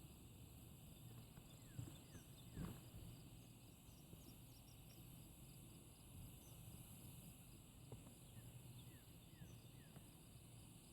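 Faint steady chorus of insects such as crickets, with a few short high chirps scattered through it and a soft thump about two and a half seconds in.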